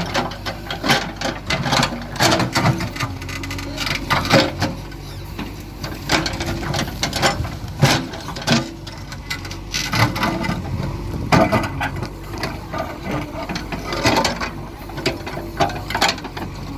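JCB 3DX backhoe loader's diesel engine running steadily, under irregular clanks, knocks and scrapes as the backhoe works at a big stone.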